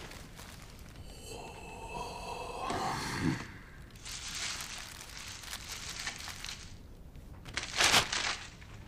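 Checkered paper liner in a burger tray crinkling as the burger is handled, for about three seconds. Before it, about a second in, a brief ringing tone sounds for a couple of seconds, and near the end there is a short sharp sound.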